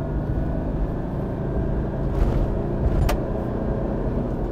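Toyota Fortuner with a remapped engine ECU, heard from inside the cabin while driving fast on an open road: a steady rumble of engine and tyre noise. A single sharp click sounds about three seconds in.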